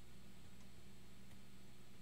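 Quiet room tone: a steady low hum with faint hiss and no distinct event.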